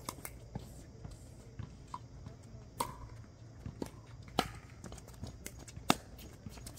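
Pickleball paddles hitting a plastic pickleball during a doubles rally: a series of sharp pops at uneven intervals, some with a brief hollow ring, the loudest near the end.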